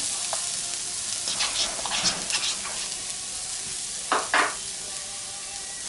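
Diced onions sizzling in hot oil in a stainless steel skillet, with a spatula stirring and scraping them across the pan a few times; the loudest scrape comes about four seconds in.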